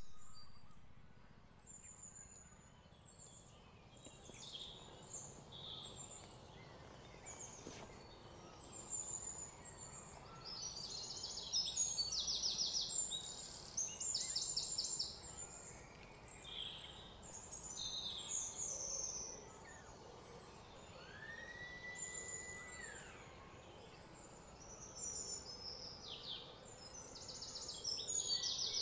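Birds chirping and trilling in many short high-pitched calls over a low hiss of outdoor background noise, with one longer whistled note a little past the middle.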